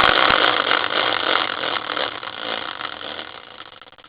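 Prize wheel spinning, its pointer ticking rapidly over the pegs, the run of clicks fading over about four seconds as the wheel slows to a stop.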